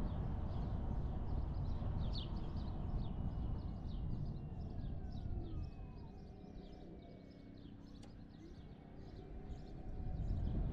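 Car driving slowly on a residential street, a steady low road and engine rumble that quietens around the middle as the car slows at an intersection, while small birds chirp repeatedly throughout.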